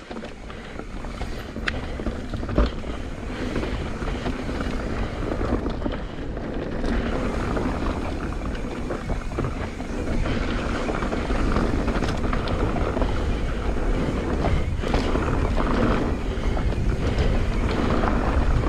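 Mountain bike riding down a dirt trail: tyres rolling over dirt and rocks with knocks and rattles from the bike, and wind rushing over the microphone, growing louder as speed picks up over the first several seconds.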